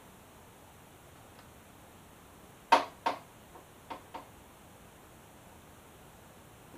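Motorcycle turn signal being clipped into the front fairing: about five sharp clicks and knocks over a second and a half, starting about three seconds in, the first the loudest.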